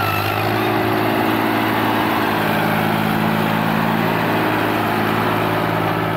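Fiat 480 tractor's three-cylinder diesel engine running steadily under load as it pulls a tine cultivator through ploughed soil.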